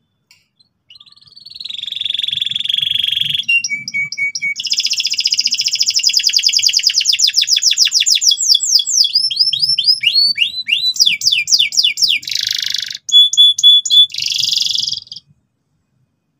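Domestic canary singing loudly and persistently. It starts with a buzzy phrase, then a long rapid trill of repeated notes, then a run of downward-sweeping notes and short buzzy and piping phrases, and stops a second or so before the end.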